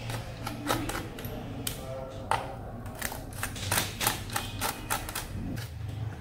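Irregular small clicks and taps of a small Phillips screwdriver and screws against a laptop's chassis as the keyboard-retaining screws are taken out of the underside.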